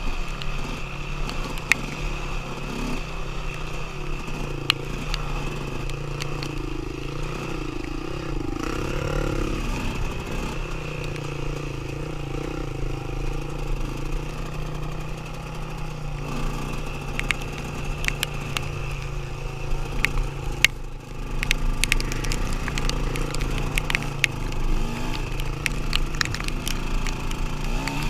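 KTM dirt bike engine running steadily under throttle on a rough dirt track. It drops off briefly about three-quarters of the way through, then picks up again, with scattered sharp clicks and knocks throughout.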